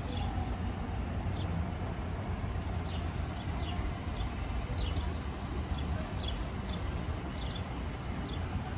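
Outdoor ambience: a steady low rumble with short, high bird chirps at irregular intervals, about one or two a second.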